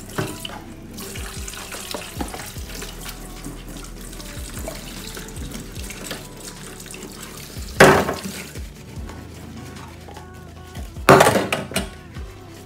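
Tap water running into a stainless-steel sink as plastic cups and lunch containers are scrubbed and rinsed by hand. Two loud clattering knocks come about eight and eleven seconds in.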